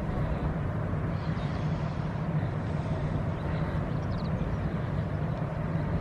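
Steady low machinery hum and rumble from a moored roro car carrier, its engines or generators running at the berth.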